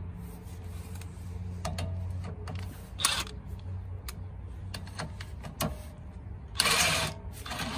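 DeWalt cordless impact wrench run in two bursts on a lug nut over a washer stack, pulling a new wheel stud into the hub: a brief burst about three seconds in and a longer one near the end, with light metal clicks between.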